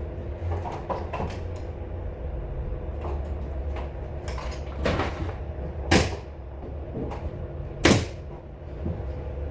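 Scattered light clicks and knocks from carpentry work, then two sharp, loud impacts about six and eight seconds in, over a steady low hum.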